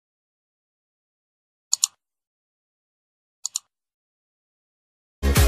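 Two computer-mouse click sound effects, each a quick double click, about a second and a half apart, from a subscribe-button animation. Electronic dance music starts abruptly near the end.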